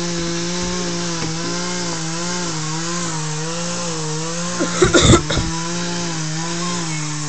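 Chainsaw running at full throttle, cutting into a tree, its pitch wavering slightly under load. A short, loud noise breaks in about five seconds in.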